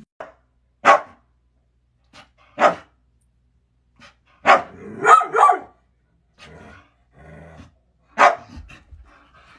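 A dog barking: single loud barks spaced a couple of seconds apart, with a quick run of three near the middle.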